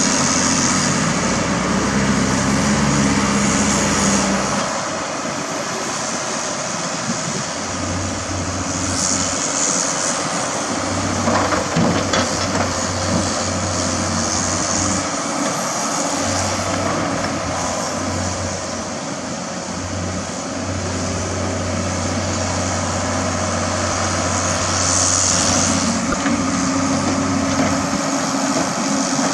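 Diesel engines of a Komatsu PC200 hydraulic excavator and dump trucks running steadily as the excavator digs and loads soil. The engine note changes about four seconds in, and there is a single sharp knock near the middle.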